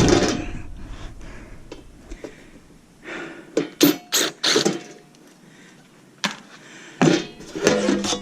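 Metal parts of a dismantled power supply being handled: a few sharp clicks and knocks, bunched about three and a half to five seconds in, with another single click a little later.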